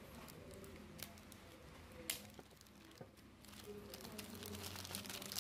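Clear plastic packaging bags crinkling and rustling as they are handled and unwrapped, with a sharp tick about two seconds in. The crinkling grows denser and louder over the last couple of seconds.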